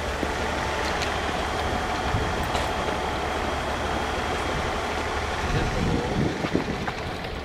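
Diesel railcar heard from the cab: a steady rumble with a faint steady whine above it.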